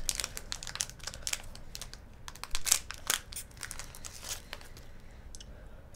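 Clear plastic candy wrapper crinkling and rustling in quick irregular crackles as a candy is unwrapped, dying away about five seconds in.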